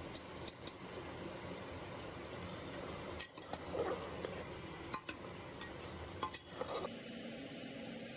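A metal spoon stirring and clinking against cookware: a handful of sharp clinks and a brief scrape about four seconds in, over a steady background hiss.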